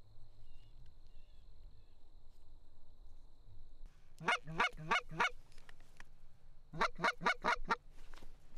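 Canada goose honks: a quick run of four loud honks about four seconds in, then five more about seven seconds in, each one sharp and rising in pitch.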